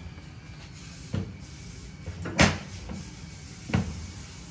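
Steel pipe wrench clanking against the steel body of an X-Line running tool held in a pipe vise, as the wrench is set and worked on the threaded sleeve. There are three metallic knocks about a second and a quarter apart, the middle one the loudest.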